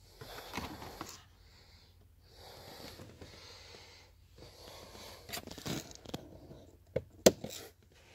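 Car glove box being opened by hand and its inside handled: soft rustling and plastic handling noise, with two sharp clicks near the end, the second the loudest.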